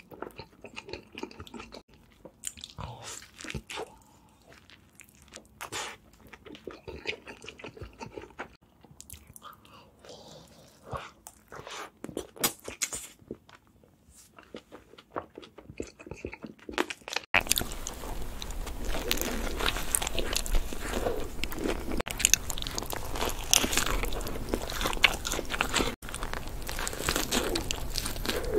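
Close-miked eating of burgers: quiet chewing with wet mouth clicks and smacks. A little past halfway it switches abruptly to louder bites and dense crunchy chewing, with a low hum underneath.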